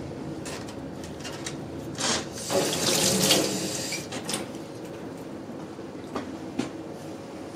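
Water running from a kitchen tap into a stainless-steel sink for about two seconds, a couple of seconds in, over steady background noise, with a few light clicks.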